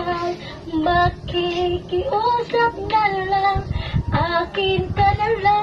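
A high voice singing a slow ballad line by line in short phrases, sung as a demonstration in a voice lesson.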